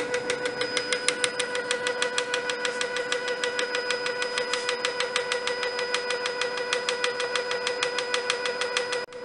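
Moulinex Cuisine Companion food processor running at speed 7 with its whisk attachment, whipping egg whites that are already nearly stiff: a steady motor hum with an even, fast ticking of about eight a second. The sound drops out briefly near the end.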